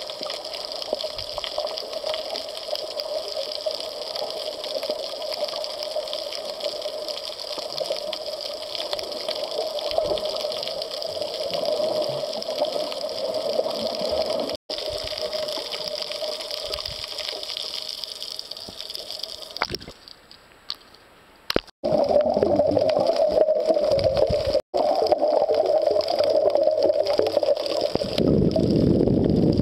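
Muffled underwater water noise picked up by a camera held underwater: a steady watery hiss with a few sudden short breaks, dropping low about twenty seconds in, then louder and deeper near the end.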